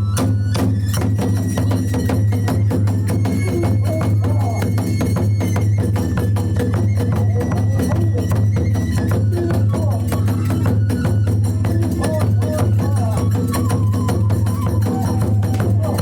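Kagura hayashi accompaniment: fast, continuous drumming and clashing hand cymbals under a high, held bamboo flute melody.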